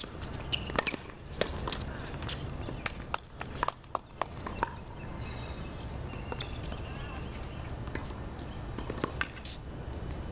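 Scattered sharp taps and knocks on a hard tennis court, from ball bounces and the player's shoes, mostly in the first half. They sit over a steady low rumble.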